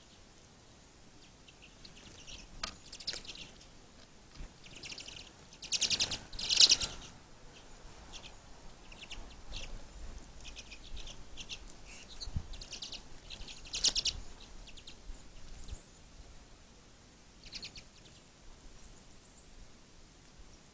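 Small songbirds calling and squabbling at a feeder: scattered short, high chirps with louder rapid, buzzy chatters, the loudest about six seconds in and again about fourteen seconds in.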